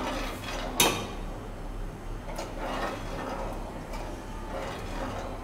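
A metal slotted spoon stirring hot milk in a pan, with a sharp metallic clack against the pan about a second in and a lighter knock a little later.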